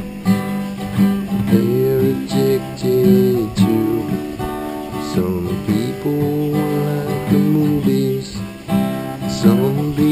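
Background music led by strummed acoustic guitar, with some sliding notes.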